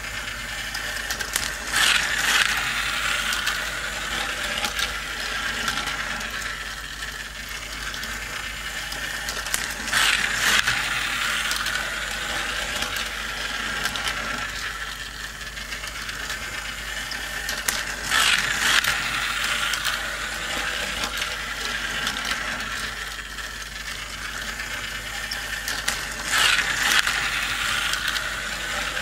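Battery-powered plastic toy race track running, its motor and gears giving a steady ratcheting clatter as a small plastic toy car laps the track. The sound swells louder four times, about every eight seconds, once each lap.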